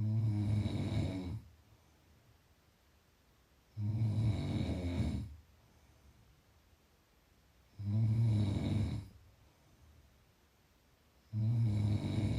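A person snoring in a slow, even rhythm: four low, rattling snores, each about a second and a half long, coming roughly every four seconds with quiet breathing gaps between them.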